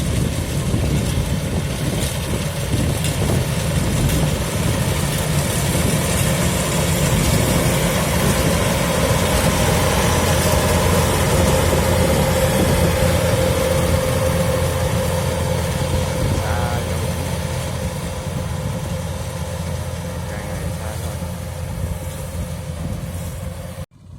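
Kubota DC-105X combine harvester's diesel engine running steadily under load, with a low drone and a faint steady whine. It grows a little quieter in the last third and cuts off abruptly near the end.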